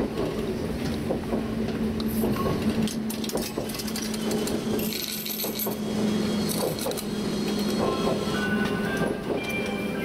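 Kumamoto Electric Railway 5000-series electric railcar running, heard from the driver's cab: a steady hum with clicks and rattles, a short hiss about five seconds in, and a whine rising in steps near the end.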